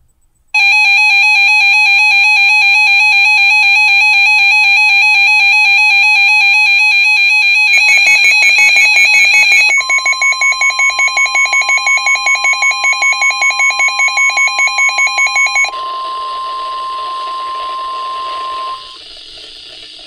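NOAA weather radio receivers sounding their loud warbling alert alarms for a severe thunderstorm warning. About halfway through, the steady 1050 Hz NWR warning tone comes in under a fast-pulsing alarm. The alarms stop about three-quarters of the way through, and the tone cuts off shortly before the end.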